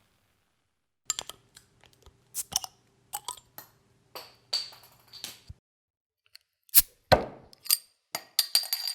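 Glass bottle being opened with a metal opener: an irregular series of sharp clinks and short metallic pings from the opener and crown cap against the glass, starting about a second in.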